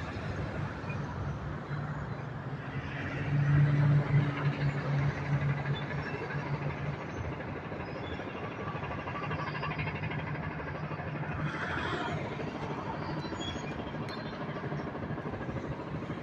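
Steady outdoor traffic noise with a low engine hum that swells for a few seconds about three seconds in, as if a vehicle passes or revs.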